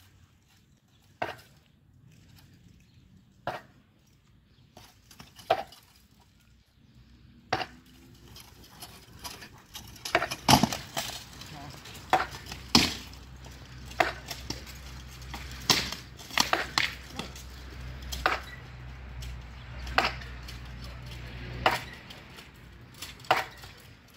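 Armoured fighters sparring: sharp blows of training weapons striking shield and armour. A few single blows a couple of seconds apart at first, then a quicker exchange from about ten seconds in, over a steady low rumble.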